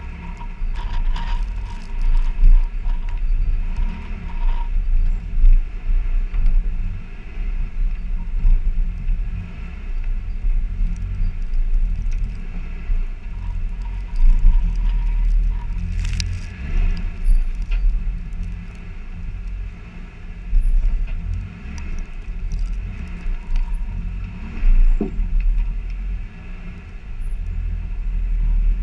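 Off-road vehicle's engine rumbling low as the vehicle crawls up a rocky trail, picked up by a camera mounted on the hood. There is a sharp knock about halfway through and a brief squeak near the end.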